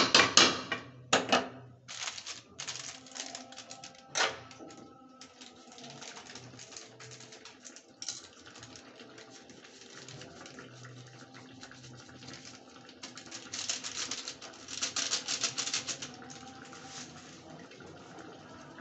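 Chicken curry sizzling and spluttering in a kadai as a fast crackle, loudest about 13 to 16 seconds in. A spatula knocks and scrapes against the pan in the first second or so and again about four seconds in.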